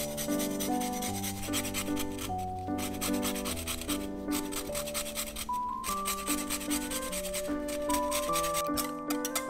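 A lemon's rind is scraped over a fine-toothed stainless-steel rasp grater in quick repeated rasping strokes, with a few brief pauses, zesting the lemon. Gentle waltz background music plays along.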